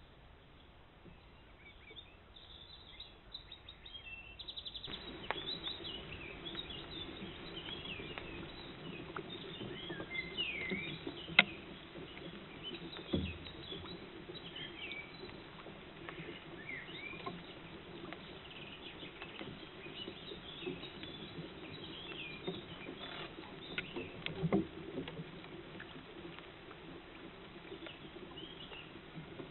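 Wild songbirds chirping and singing in woodland, faint for the first few seconds and then denser from about five seconds in, over a steady low hum. A sharp click comes near the middle, with a few softer knocks later.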